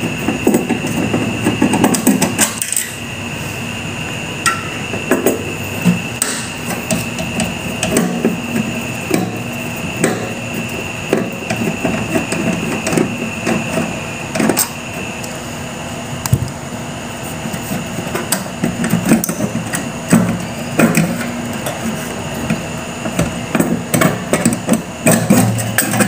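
Irregular clicks, knocks and clinks of a screwdriver and metal parts as a microwave oven's magnetron is unscrewed and lifted out of its sheet-metal housing. A steady high-pitched tone runs underneath.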